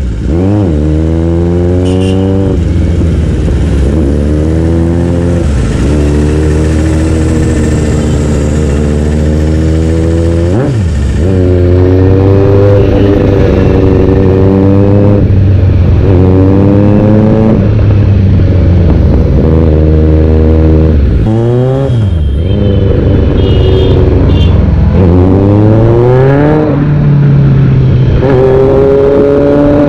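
Kawasaki Z900's inline-four engine through an aftermarket Race Fit exhaust, accelerating hard. The exhaust note climbs and drops sharply at each gear change, over and over.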